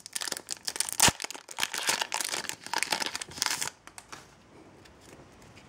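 A Yu-Gi-Oh! Shadow Specters booster pack's foil wrapper being torn open and crinkled by hand, with a sharp crack about a second in. The crinkling stops after about three and a half seconds.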